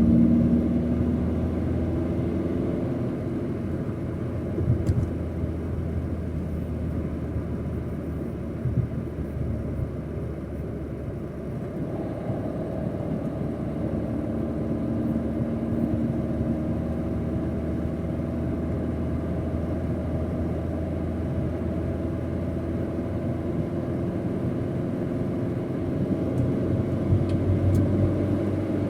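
Opel Corsa D engine running with a failed turbo: a steady low drone whose pitch drifts slowly up and down as the revs change.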